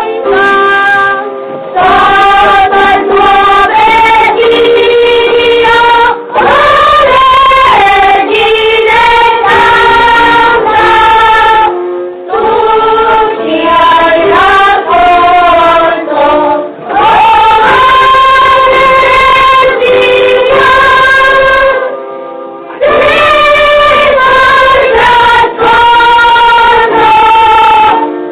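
A children's choir singing a song in unison, phrase after phrase with short breaths between, on an old recording that sounds dull, with no treble.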